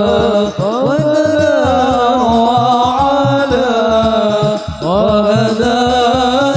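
Hadroh ensemble: men singing a long, wavering melismatic phrase of an Arabic sholawat over a steady rhythm of rebana frame drums played by hand.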